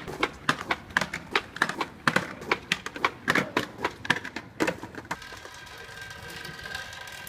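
A quick, irregular run of sharp clicks or taps, about three or four a second, that stops about five seconds in and gives way to a steady held tone of several pitches.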